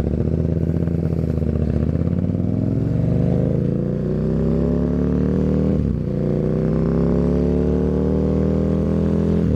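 KTM 1290 Super Duke's V-twin engine running through an Austin Racing exhaust with the dB killer removed, pulling under acceleration: the pitch climbs for a few seconds, dips briefly just past the middle as it shifts up a gear, then climbs again.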